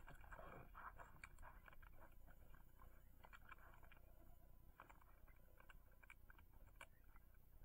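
Faint, irregular wet tearing and scraping with small clicks: a wolf's hide being skinned off the carcass.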